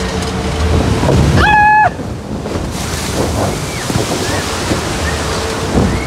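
Rushing water and wind on the microphone as a flume-ride log boat runs down the chute and into the splash pool. There is a brief high yell from a rider about a second and a half in.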